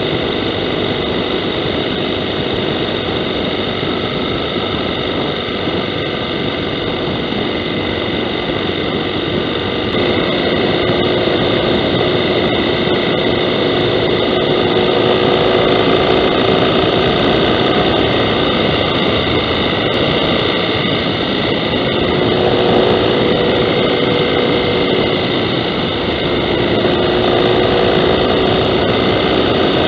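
Motorcycle engine running at road speed under heavy wind rush, its drone slowly rising and falling in pitch as the rider works through the bends, a little louder from about ten seconds in.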